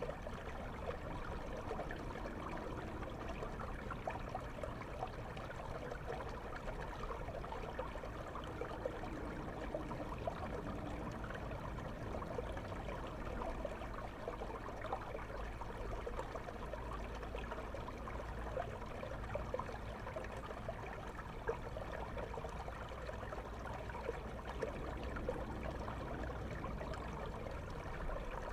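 River water flowing, heard through a camera held underwater in the stream: a steady rush with dense fine crackling and bubbling, and a low rumble underneath.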